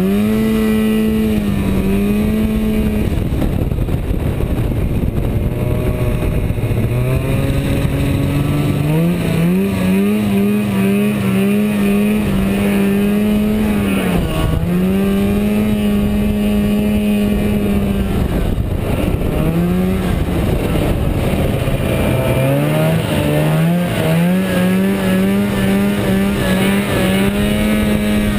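Arctic Cat Jag Deluxe 440 snowmobile's two-stroke engine running at speed, revving up to a high steady pitch, then easing off and climbing back again several times as the throttle is worked.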